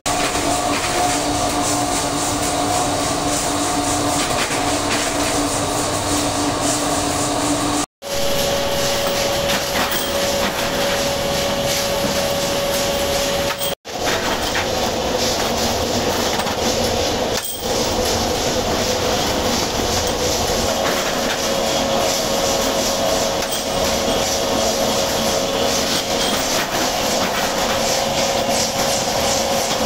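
Workshop machinery running: a steady motor hum under dense, rapid metallic clatter. The sound cuts out briefly three times and the hum's pitch changes each time.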